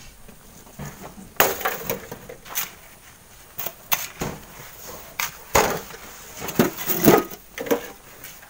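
A large stone being heaved into a steel wheelbarrow on sandy gravel: irregular knocks, scrapes and gritty crunches, the loudest about seven seconds in.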